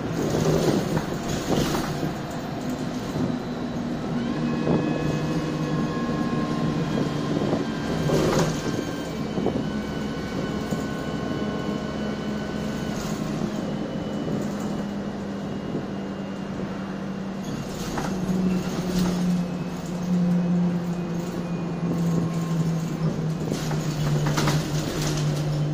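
MAN 18.240 LF single-deck bus heard from inside the cabin while under way: the diesel engine and gearbox pull with a whine that climbs in pitch as the bus accelerates, and the note changes about halfway through as it shifts gear. Sharp knocks and rattles from the body and fittings come every few seconds as it goes over bumps.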